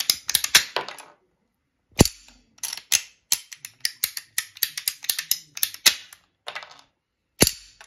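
Ratchet-type plastic pipe shears clicking in quick runs as the handle is squeezed over and over, cutting small polyethylene pipe without turning it. There are two louder sharp snaps, about two seconds in and near the end.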